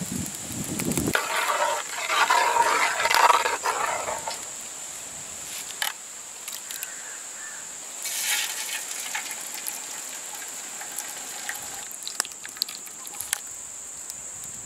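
Beaten egg mixture poured from a bowl into a hot, oiled metal tray, splashing and sizzling. It is loudest for a few seconds near the start and again briefly about eight seconds in, with small clicks and taps between, over a steady high-pitched hiss.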